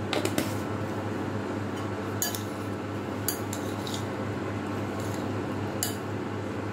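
Steel spoon clinking against a glass bowl while a chopped salad is tossed: a handful of sharp, separate clinks spread out over a few seconds.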